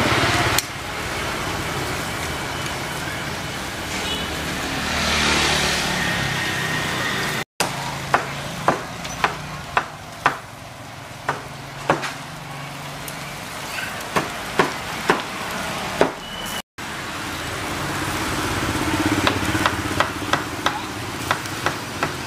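Street ambience with passing traffic and a steady background hum, broken by many sharp clicks and crackles from a charcoal grill loaded with meat through the middle and near the end. The sound drops out briefly twice.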